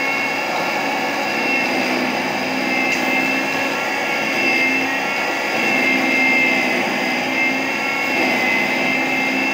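Electric mixer-grinder running steadily with a high whine, its small glass jar grinding a dry mix into powder.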